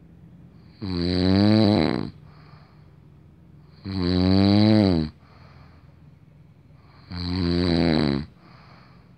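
A man snoring in his sleep: three loud, pitched snores, each a little over a second long and about three seconds apart, with a softer breath between each.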